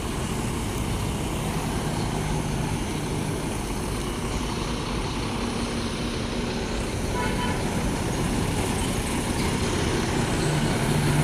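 Steady hum of vehicle engines and road traffic, with a faint low engine drone running through it.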